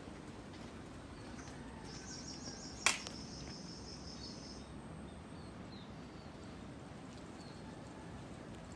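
Outdoor garden ambience: a high, rapid chirring trill lasts about three seconds from around two seconds in, with a single sharp click about a third of the way through as the loudest sound, and a few faint short chirps afterwards.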